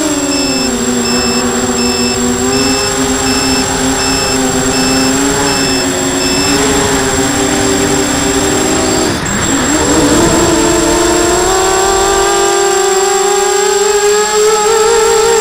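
Quadcopter's brushless motors and 5-inch props whining, the pitch following the throttle: falling early on, holding, dipping sharply and briefly about nine seconds in, then climbing, with a warbling beat between the motors near the end. A steady electronic beep repeats about one and a half times a second over the first half, alongside a thin high whine.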